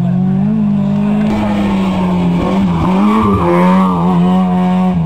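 Competition car's engine at high revs through the slalom cones, dipping and climbing again several times in the middle as the driver lifts and goes back on the throttle. Tyres squeal briefly mid-run.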